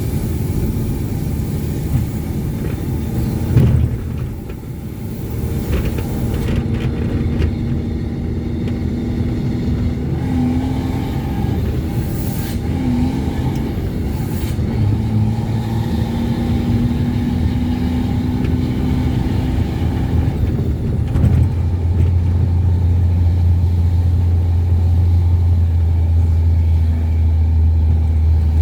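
Ford Cargo 2428 truck's diesel engine running under a heavy load, a continuous engine drone with a short dip in level about four seconds in. From about two-thirds of the way through it settles into a deeper, steadier drone.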